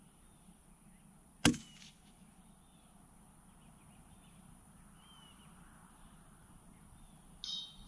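A single shot from a Vudoo V-22 .22 LR rimfire rifle, one sharp crack about one and a half seconds in. Near the end comes a faint short ring: the bullet striking the steel target at 1,000 yards.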